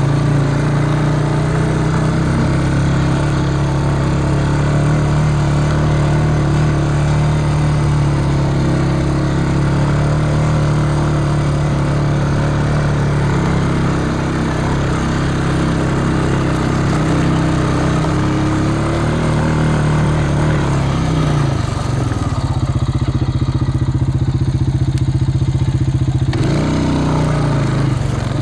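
A vehicle engine running steadily. It slows a little past the three-quarter mark, then picks back up near the end.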